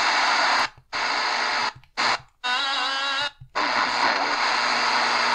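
Shortwave static hissing from the speaker of an Eton Grundig G5 portable radio as it is stepped between frequencies, the audio going silent three times for a moment as it retunes. After the second gap, a wavering, warbling whistle of several tones sounds for about a second.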